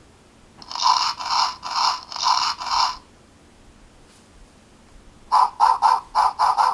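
Children's sound book's small built-in speaker playing an electronic sound effect after a button press: five evenly spaced pitched pulses, a pause of about two seconds, then a quicker run of about seven pulses near the end.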